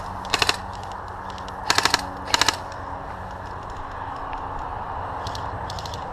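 Airsoft guns firing short bursts of rapid shots: one burst about half a second in, two close together around two seconds in, and a fainter one about five seconds in.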